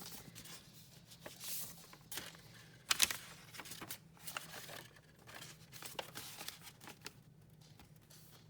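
Packaging being torn open and crinkled by hand: a run of irregular rustles and tearing sounds, with one sharp rip about three seconds in.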